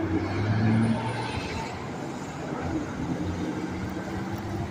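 Highway traffic: a passing vehicle's engine hum, loudest in about the first second, then settling into a steadier, fainter drone of further traffic.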